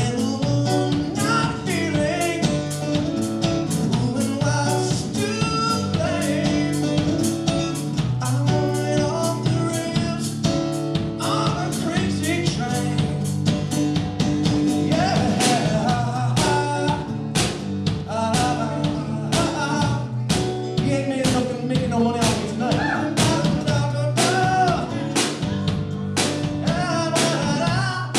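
One-man band playing a rock song live: strummed acoustic guitar and a man singing, over a steady beat on a kick drum and cymbal played with foot pedals.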